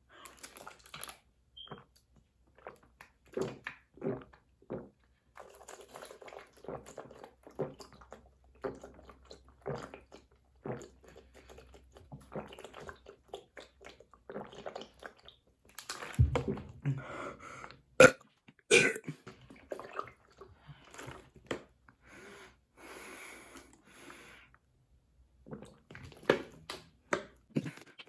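A person chugging water from a plastic bottle: a long run of short gulps and swallows, with burps. The loudest sounds, a strong low burst and a sharp click, come about sixteen to nineteen seconds in.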